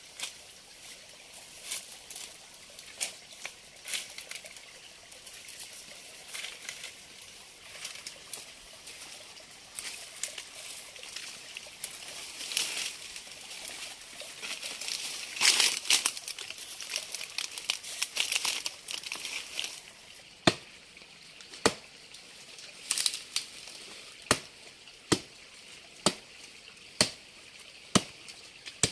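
Rustling and handling noises with scattered clicks. About two-thirds of the way in, these give way to sharp chopping strikes about once a second, a blade cutting into something on a hard surface.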